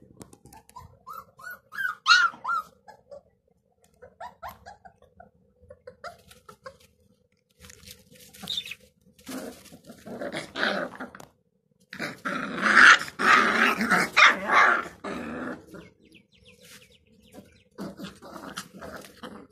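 Six-week-old Gultair (Gull Terrier) puppies growling and yapping. A run of short, high, rising yelps comes about two seconds in, and the loudest stretch of rough growling and yapping falls past the middle.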